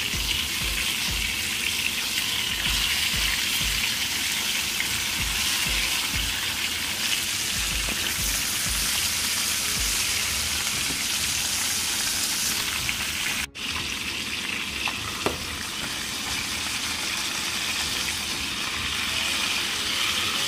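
Fish frying in hot oil in a pan: a steady, dense sizzle, with a momentary break about two-thirds of the way through.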